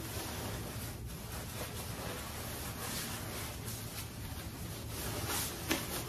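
Nylon shell of a down parka rustling as the hood is pulled up over the head and the collar is zipped, with louder rustles about five seconds in, over a steady hiss.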